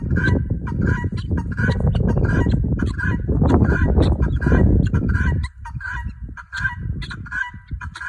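Helmeted guinea fowl giving their harsh, repeated alarm call, an even run of two to three calls a second. Under it a loud low rumble stops suddenly about five and a half seconds in.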